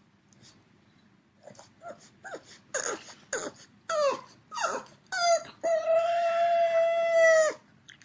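A dog whining in a string of short cries, some falling in pitch, then holding one long, steady howl for nearly two seconds near the end.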